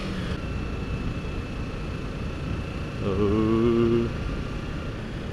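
Kawasaki Ninja 300 parallel-twin engine running while under way, with wind rushing over the camera microphone. About three seconds in, a louder steady drone holds for about a second.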